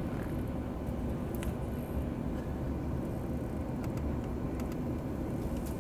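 Steady low rumble inside the cabin of a Boeing 737-800, its CFM56 engines at ground idle while it waits on the apron, with a few faint clicks.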